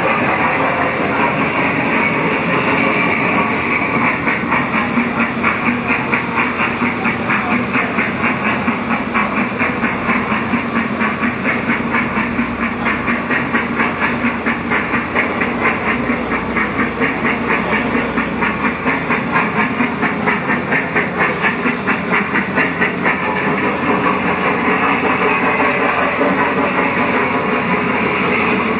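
Thomas the Tank Engine kiddie ride train running on its track, with a fast, even clatter of about four to five beats a second that fades back into a steady rumble near the end.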